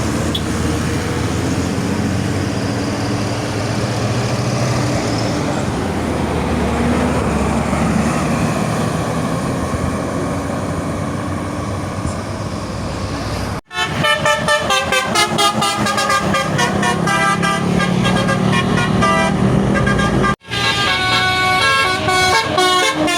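A bus engine and road traffic run steadily. Then, after an abrupt cut a little past halfway, a Basuri telolet musical horn plays a fast tune of short notes at changing pitches. The tune breaks off at a second brief cut near the end and carries on.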